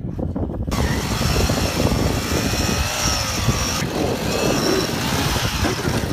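A small engine starts up abruptly and runs hard, its whine wavering up and down in pitch, with a brief dip in the middle.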